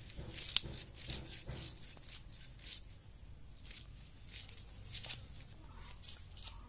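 Scales being scraped off a large rohu fish drawn against the edge of an upright bonti blade: a run of short, crisp scraping strokes, irregular, about two a second.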